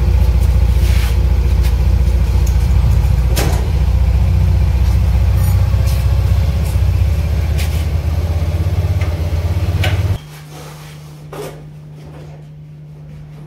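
Freshly rebuilt TVS Jupiter scooter's single-cylinder four-stroke engine running steadily with its silencer fitted, with a few sharp clicks, then switched off about ten seconds in, leaving a steady low hum.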